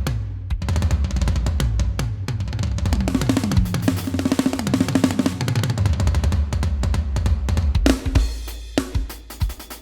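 Drum kit played in fast runs of bass drum, snare and tom strokes, the toms falling in pitch after each hit. Near the end it thins to sparser single hits.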